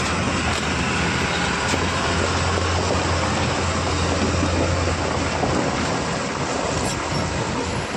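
Diesel truck engine running, a steady low hum that eases off about five seconds in.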